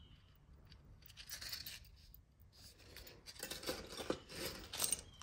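Jewelry and its packaging being handled: a soft rustle, then a run of small metallic clicks and taps near the end as the pieces are picked up and set down.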